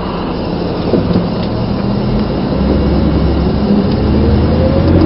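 Car engine and road noise heard from inside the cabin while driving, growing louder with a slowly rising whine as the car picks up speed.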